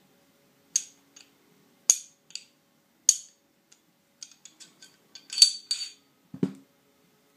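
Barrel of a SIG Sauer 1911 RCS pistol clicking into lockup in its slide: about four sharp metallic clicks roughly a second apart. This is the click of a tight, hand-fitted barrel. A run of lighter metal clinks follows as the barrel is worked out of the slide, and near the end comes a single duller knock.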